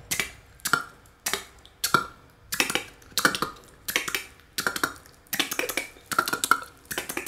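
Beatboxer's TK roll: mouth-percussion clicks alternating "t" and "k", played as a small drum roll in short runs of a few quick clicks, repeated about every two-thirds of a second.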